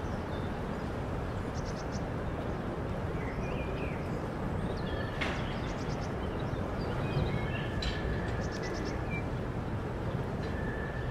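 Open-air ambience: a steady low background rumble with small birds chirping now and then in short quick runs of notes, and a couple of sharp ticks about halfway through.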